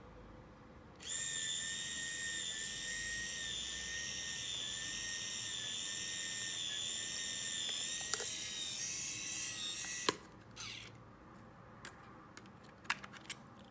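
Olympus Superzoom 76S's built-in motor rewinding the film into its cassette: a steady high-pitched whirring that starts about a second in, after the mid-roll rewind button is pressed, runs for about nine seconds and stops with a click. A few small clicks follow near the end as the camera back is opened and the cassette handled.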